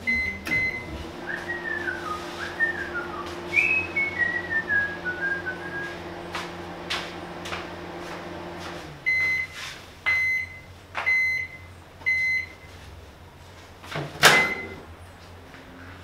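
Brastemp microwave oven: a keypad beep as it starts, then its steady running hum, with a few whistled notes over it. About nine seconds in the hum stops and the oven gives four end-of-cycle beeps about a second apart, then the door latch clicks open sharply.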